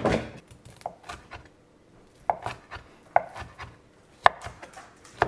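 Chef's knife slicing cooked steak on a wooden cutting board, the blade knocking against the board in a series of sharp taps, about one a second in the second half.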